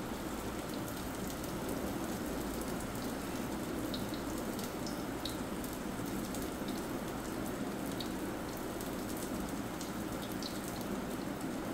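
Oil sizzling steadily around a chicken kabab patty shallow-frying on a flat tawa, with small crackles and spits now and then.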